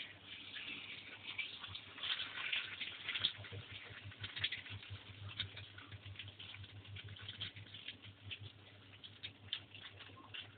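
Onion omelette frying in hot oil in a pan: irregular light crackling and spitting, with a low steady hum underneath.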